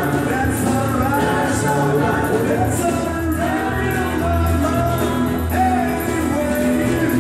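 Live acoustic country band playing through a PA, with strummed acoustic guitars, fiddle and tambourine under a man singing lead.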